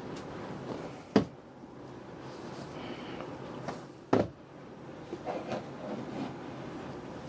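Cardboard product box handled and opened during an unboxing: low rustling of the packaging with two sharp knocks, about a second in and about four seconds in, and a few lighter ticks after.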